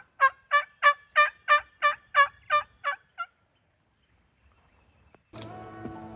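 A run of about ten evenly spaced, loud turkey yelps, roughly three a second, ending a little after three seconds in. Music comes in about five seconds in.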